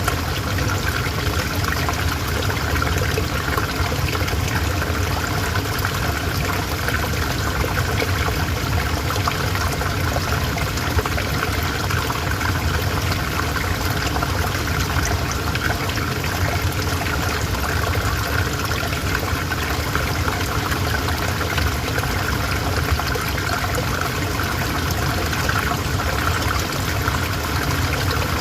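River water flowing and splashing in a steady, unbroken rush.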